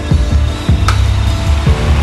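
Background music: low bass notes with steady sustained tones, and a single sharp, bright percussive hit about a second in.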